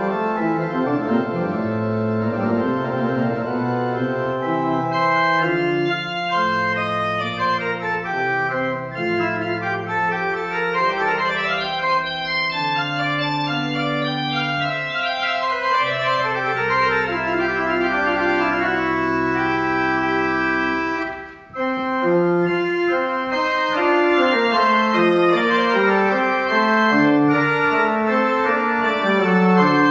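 Church pipe organ playing a recital piece: sustained chords with moving inner lines, and a deep held bass note in the middle stretch. The sound breaks off briefly about two-thirds of the way through, then the playing resumes.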